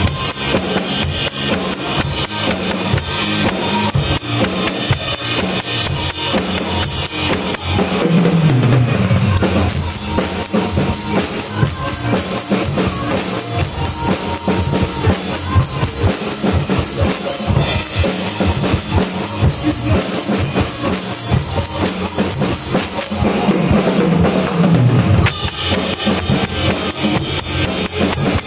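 Acoustic drum kit played in a steady, driving groove of snare, bass drum and cymbals. Twice, for about two seconds, the cymbals drop out and the low drums carry the beat.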